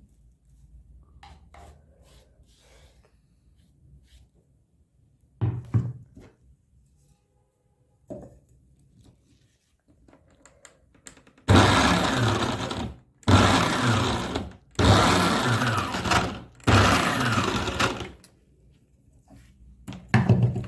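Electric mixer grinder run in pulse mode, grinding dried violet flowers: four loud runs of about a second and a half each with short breaks, in the second half. Before them, a few light knocks and two thumps.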